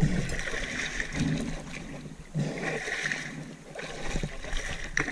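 River water sloshing and splashing around a person wading chest-deep while hauling on a harpoon line, with irregular surges of splashing as a hand breaks the surface.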